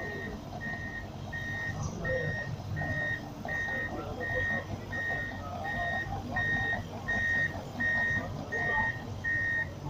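Backup alarm on heavy earth-moving machinery beeping a single high tone evenly, about three beeps every two seconds, over a low diesel engine rumble.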